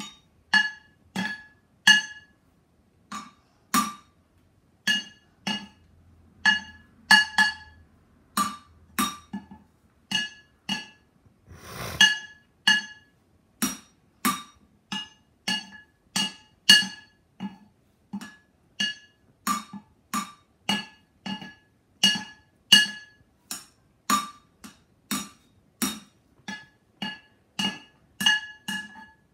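Wooden drumsticks beating a rhythm on two upturned metal cooking pots, about one to two hits a second. Each hit is a sharp clank that rings briefly with a clear metallic tone.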